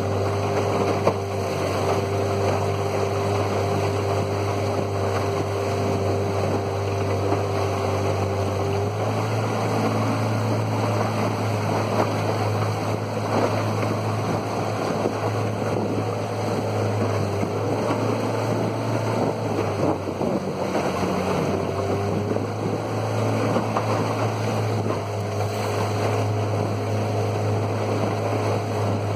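Outboard motor pushing a small aluminium boat along a river at steady speed, with wind on the microphone and water rushing past the hull. The engine note shifts slightly about nine seconds in and again around twenty-two seconds in.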